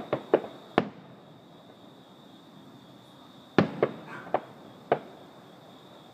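Aerial fireworks bursting: a quick cluster of four sharp bangs at the start, then after a pause of about three seconds a second run of five bangs.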